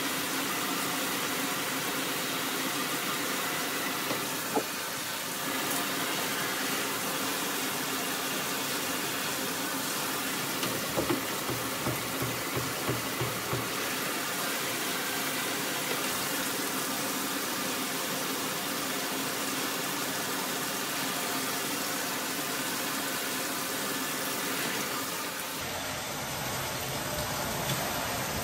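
Water pouring steadily from an overhead rain shower head, a constant hiss of spray falling on the tiles and on hair and skin, with a few short knocks near the middle. Near the end the sound turns fuller and lower as the spray lands on a head bent under the stream.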